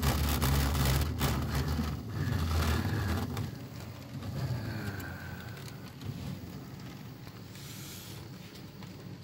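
Two HO scale model diesel locomotives running along the layout track, giving a low rumble with scattered clicks that drops off sharply about three and a half seconds in, leaving a quieter running sound. The owner says something is going on with these two locos and suspects dirty wheels or dusty track.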